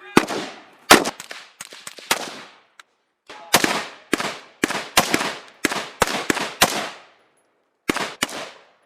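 Irregular single rifle shots from several shooters, about fifteen in all, each with a short ringing tail. The firing pauses for about a second before two last shots near the end.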